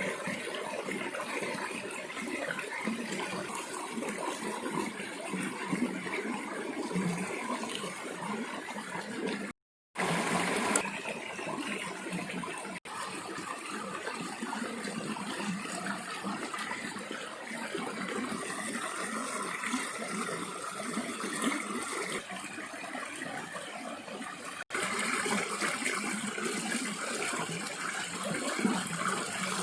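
Running, splashing water, heard in several takes separated by brief cuts to silence.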